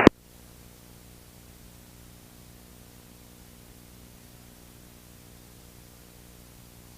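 Faint steady hum and hiss on the aircraft's radio and intercom audio feed between transmissions, with no speech.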